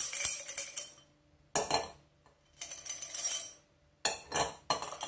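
Costume-jewellery pearl bracelets rattling and clinking against the inside of a stemmed beer-type glass as it is handled, in four short bursts.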